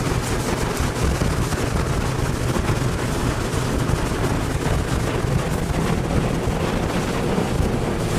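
Tornado winds blasting around and over an armoured storm-intercept vehicle: a dense, unbroken rush of wind with many small sharp hits of debris on the hull.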